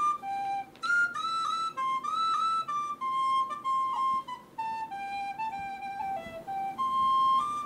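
Background music: a solo flute playing a melody of short notes, some slurred with small slides in pitch, with no accompaniment.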